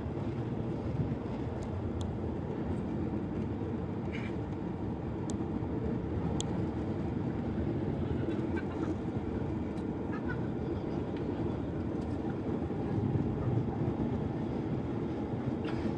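Steady cabin noise of a Ryanair Boeing 737-800 climbing after takeoff: the low, even rush of the jet engines and airflow heard from inside the cabin, with a few faint clicks.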